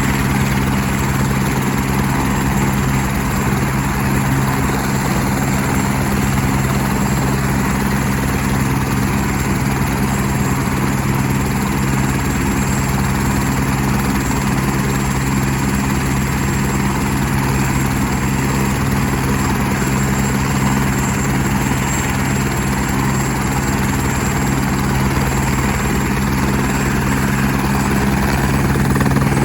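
Fire department rescue helicopter running steadily, its engine and rotor giving a continuous even hum with a broad rushing noise, growing slightly louder near the end.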